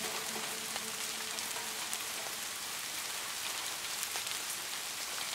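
Steady rain falling: an even hiss with scattered sharper ticks of single drops.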